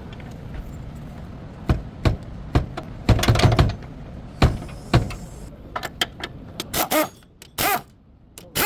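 A series of irregular knocks and thunks, clustered about three seconds in, followed by shorter sharp sounds near the end.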